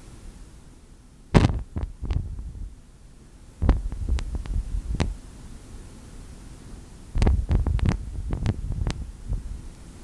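Foley wind-whip effect: a whip swung fast through the air, in three flurries of sharp swishes, the last flurry the longest, over a low background hum.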